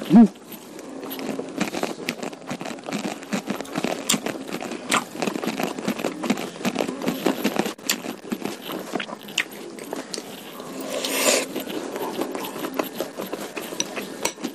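Close-miked eating sounds: a person chewing food with a steady run of wet mouth clicks and smacks, with a short louder sound right at the start and a louder noisy stretch about eleven seconds in.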